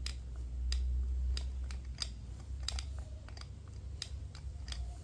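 Hand screwdriver turning a wood screw into a wooden post, giving sharp, irregular clicks about every half second over a low rumble.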